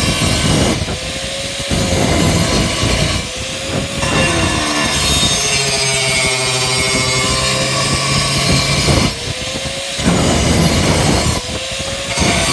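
Handheld electric angle grinder grinding a steel bar in repeated passes. The motor's whine sags as the disc is pressed into the metal and rises again when it is eased off, with one longer pass in the middle.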